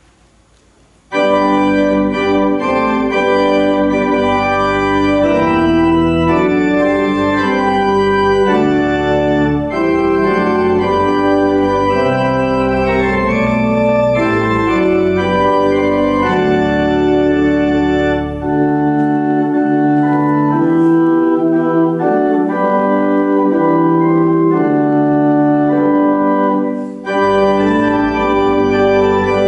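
Church organ playing a postlude of sustained chords over a low pedal bass. It starts about a second in, after a short quiet gap, and breaks briefly between phrases twice.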